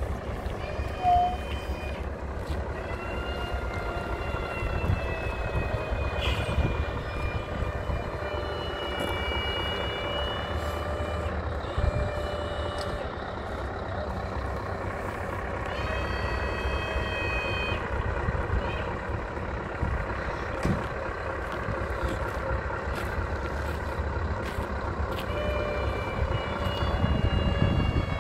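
Heavy semi-truck's diesel engine running low and steady as it slowly tows a wooden cabin on a low-loader trailer, with high-pitched squeals coming and going every few seconds and a couple of short knocks.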